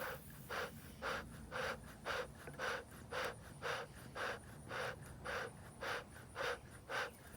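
Bee smoker bellows pumped in a steady rhythm, about two puffs of air a second, fanning the freshly lit hay and burlap fuel to build embers.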